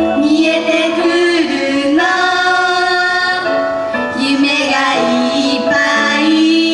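Two female singers singing a song into handheld microphones over backing music, with long held notes.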